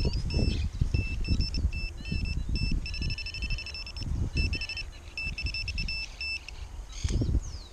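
Handheld metal-detector pinpointer beeping in short pulses as it is passed over a clump of soil, the beeps quickening into a steady tone about three seconds in: it is signalling metal in the soil. Soil crumbling and rustling under the fingers runs beneath it.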